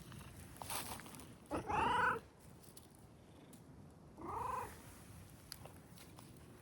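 Small calico cat meowing twice, a loud drawn-out call about a second and a half in and a shorter, softer one about four seconds in, with purring underneath: a greeting from a happy, contented cat.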